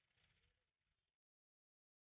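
Near silence: the sound track fades out within the first second and goes completely dead.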